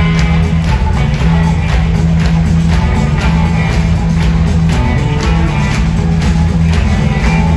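Live rock band playing in an arena, heard from the crowd: guitar, bass and drums with a steady beat and no vocals.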